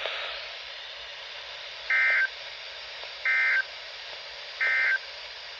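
NOAA Weather Radio receiver sounding the three short warbling data bursts of the EAS end-of-message code, evenly spaced about a second apart over steady radio hiss. They mark the close of the required weekly test broadcast.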